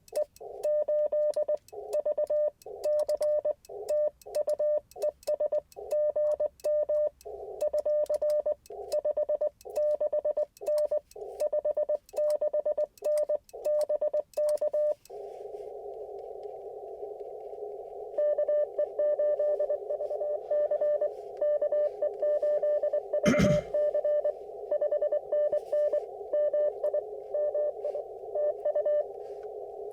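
Morse code (CW) on an Icom IC-705 ham radio transceiver: a single mid-pitched tone keyed on and off in dots and dashes over narrow-filtered band hiss. It stops for a few seconds of steady hiss about halfway and then resumes. There is one short thump about two-thirds of the way in.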